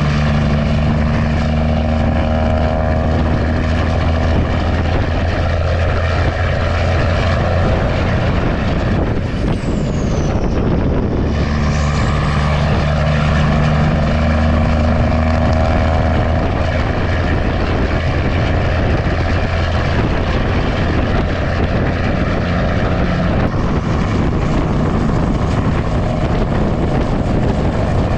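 Heavy diesel engine running steadily under load, a loud, even drone that dips briefly about ten seconds in and then settles back.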